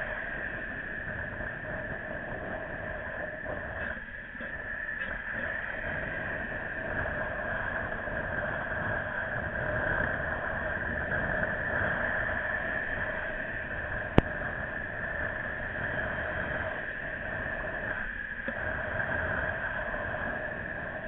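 Steady wind and road rush on the microphone while riding along the road, with one sharp click about fourteen seconds in.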